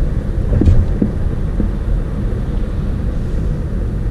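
Steady low road rumble heard inside a moving car's cabin at highway speed, from the tyres and engine. A couple of brief bumps come a little under a second in.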